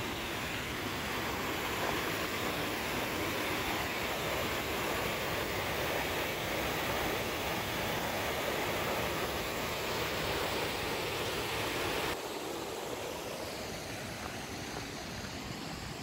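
Water of a small stream cascade pouring over a rock ledge into a pool, a steady rushing hiss that turns abruptly quieter about twelve seconds in.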